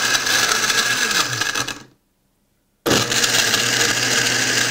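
Farberware heavy-duty blender blending a smoothie of yogurt, orange juice and ice on its preprogrammed setting. The motor runs, winds down and stops about two seconds in, then starts again a second later: the program pulsing in bursts so that settled ingredients get pulled back into the blades.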